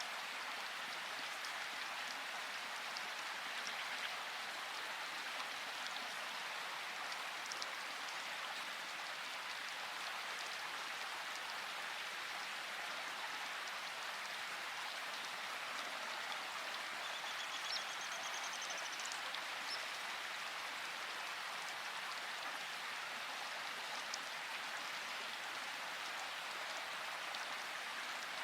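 Steady rain falling, an even hiss with scattered drops ticking on a surface; no thunder.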